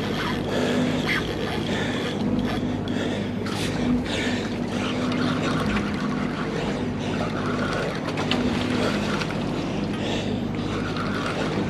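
Steady drone of a boat's engine with wind and water noise, under the on-and-off whir of a spinning reel being cranked against a hooked giant trevally.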